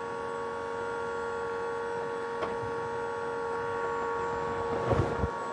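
Solectrac e25 electric tractor's drive motor humming steadily with a fixed whine while the tractor strains against a chain in a load-cell pull test. A brief low rumble comes near the end.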